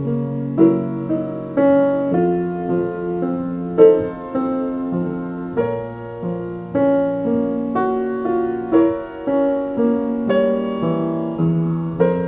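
Piano music that starts suddenly, with notes and chords struck about once or twice a second.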